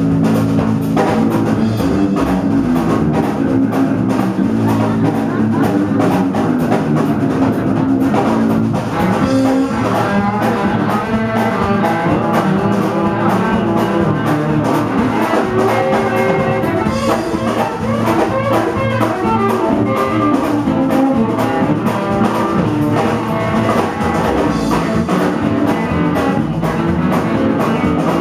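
Live small band playing, with upright double bass and drum kit keeping a steady groove, heard loud and close in a small room.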